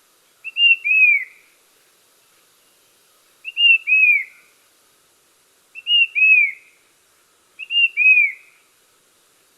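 Brown-capped babbler calling: four two-note whistled phrases about two seconds apart, each a short high note followed by a longer falling whistle.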